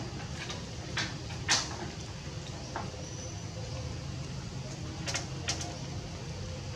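A few sharp, short knocks and scrapes, the loudest about a second and a half in, over a steady low hum.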